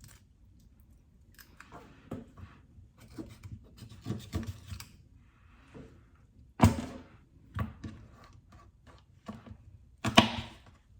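Knife cutting chicken feet on a cutting board: scattered light clicks and knocks, with two loud sharp chops, one about halfway and one near the end.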